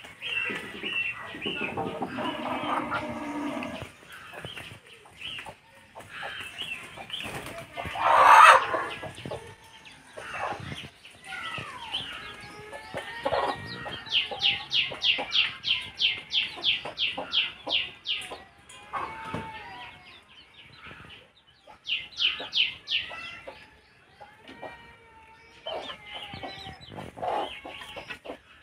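Domestic chickens clucking and calling, with one louder call about eight seconds in. Around the middle there are quick runs of high, evenly spaced chirps, about four a second.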